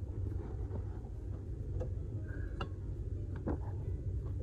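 A few faint, light clicks over a steady low hum, while the accelerator pedal linkage is being oiled.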